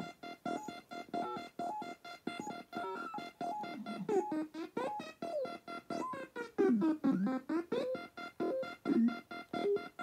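Circuit-bent Palitoy Merlin electronic game playing a fast run of repeating electronic beeps. About four seconds in, its pitch starts gliding and wobbling up and down, bent by its pitch modulation.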